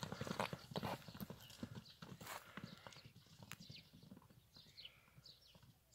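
Hoofbeats of two horses running over dry, grassy ground, a rapid patter of thuds that fades as they move off. A few short chirps come in near the end.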